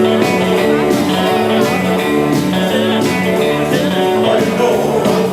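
Band music with guitar over a steady, evenly pulsing bass line.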